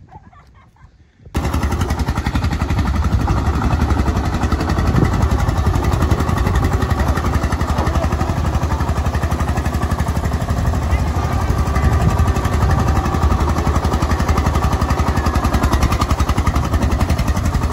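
Eicher 242 NC tractor's diesel engine running steadily, cutting in abruptly about a second in.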